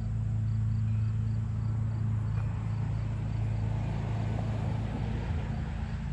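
Steam locomotive off in the distance: a low, steady rumble, with a hiss swelling about four seconds in.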